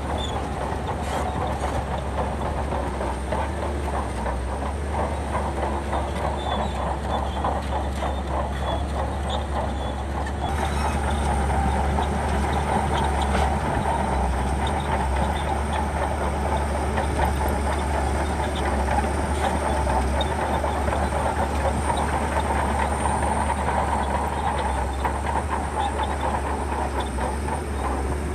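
Shantui crawler bulldozer working: a steady diesel engine drone under the rapid clanking and rattling of its steel tracks. It gets louder about ten seconds in, with a faint high whine added.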